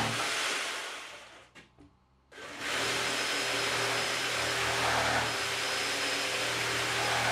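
Handheld jigsaw running and cutting a curved radius through two boards taped together. It dies away to silence about a second and a half in, then starts again and runs steadily.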